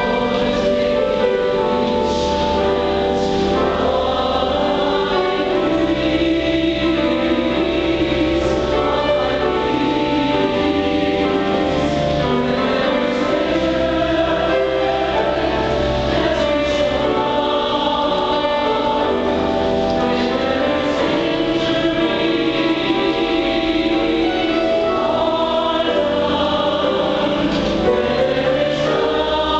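Large mixed choir of men's and women's voices singing a sacred anthem in held, layered chords, with piano accompaniment.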